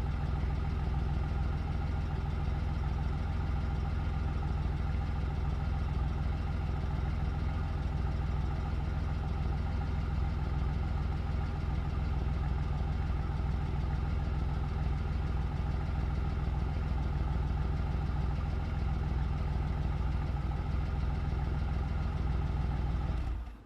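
Car engine idling steadily with a low, even drone and no revving, then quickly fading out near the end.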